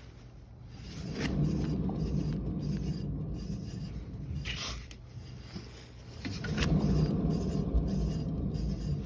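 Suzuki Alto wheel hub bearing making an abnormal rough noise, the sign of a worn bearing. The noise swells up about a second in, eases off, and swells again past the six-second mark.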